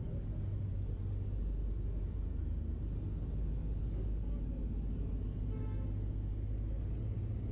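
Steady low rumble of city street traffic, with a brief higher-pitched sound about two-thirds of the way through.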